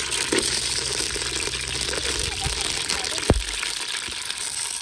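Steady hiss of rain together with hot palm oil sizzling as sliced red onion drops into the pot. One sharp thump about three seconds in.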